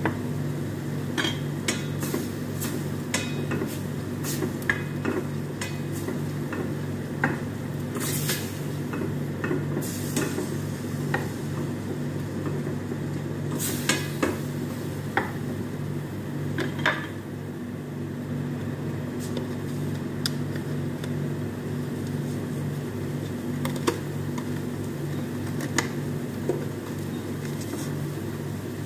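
A spatula knocking and scraping in a stainless steel frying pan as minced beef is stirred, the knocks thinning out after about seventeen seconds. A steady low hum runs underneath.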